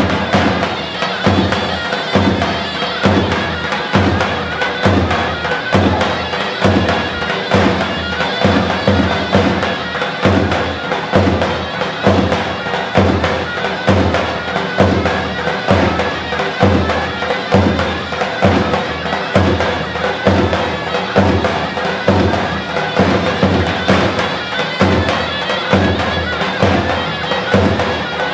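Traditional folk dance music: a shrill reed wind instrument carries the tune over a steady bass drum beat of about two beats a second.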